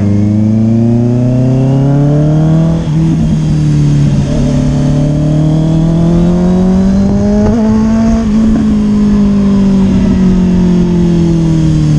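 Honda CBR650-series inline-four sport bike engine under acceleration, heard from the rider's seat. The pitch climbs for about three seconds, drops briefly at an upshift, climbs again until about eight seconds in, then eases off slowly toward the end.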